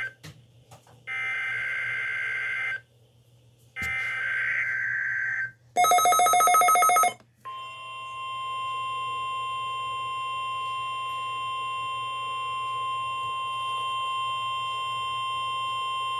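NOAA Weather Radio Required Weekly Test signal: two bursts of the SAME digital header, a screechy modem-like warble each about a second and a half long, then a loud, rapidly pulsing electronic beep for about a second. After that comes a steady warning alarm tone just above 1 kHz that holds for about nine seconds.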